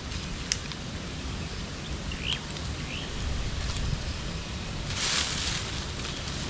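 Wind rumbling on the microphone outdoors, with a sharp click about half a second in and two short bird chirps between two and three seconds. About five seconds in there is a burst of dry rustling and crackling as dry leaves and twigs are handled to light a small smudge fire on the ground.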